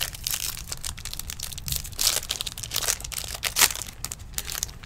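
Plastic foil wrapper of a Topps Stadium Club baseball card pack crinkling and tearing as it is ripped open, a run of crackles with the loudest bursts about two seconds in and again about three and a half seconds in.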